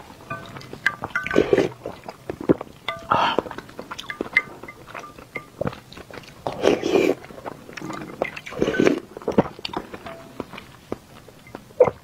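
Close-miked eating sounds: wet chewing and sipping with many sharp mouth clicks, and louder slurps about one and a half, three, seven and nine seconds in.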